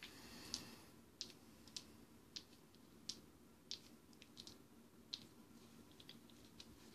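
Near silence with a faint hum, broken by small, sharp clicks at irregular intervals, about one or two a second.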